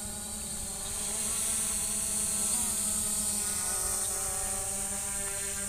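JJRC X17 quadcopter's brushless motors and propellers buzzing steadily while it flies a slow automatic orbit, with a small shift in pitch about two and a half seconds in.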